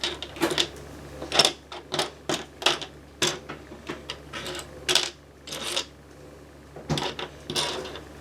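Loose plastic Lego bricks clicking and clattering together as a hand sifts through a pile of pieces: many irregular sharp clicks and short rattles.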